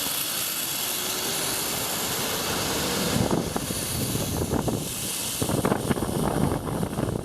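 Zip line trolley running along the cable with a steady whirring hiss, its pitch rising slowly as it picks up speed. Gusty rumbling joins in from about three seconds in.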